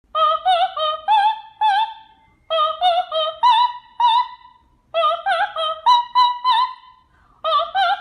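A high voice singing short, quick notes with strong vibrato, unaccompanied, in four phrases broken by brief pauses.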